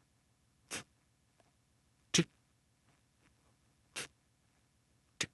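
Four short swishing sound-effect bursts, one every second or two at uneven spacing, over a faint low background bed.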